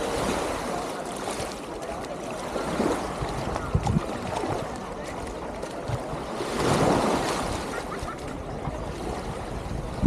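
Small sea waves lapping and washing onto a sand and pebble shore, one wash swelling louder about two-thirds of the way through, with a few low thumps.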